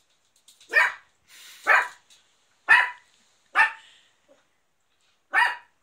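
A beagle puppy barking at its own reflection in a glass door: five short, high barks, the first four about a second apart, the last after a pause of nearly two seconds.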